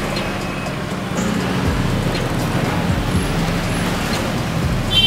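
Street traffic noise, with a motorbike engine running as it passes by, and a brief high tone near the end.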